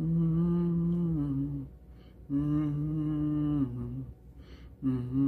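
Low humming, three long held notes each stepping down a little in pitch at its end, with short pauses between them.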